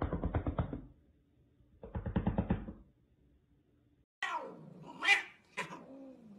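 A rapid rattling, twice in the first three seconds. Then, about four seconds in, two cats fighting, with drawn-out yowls that slide down and back up in pitch.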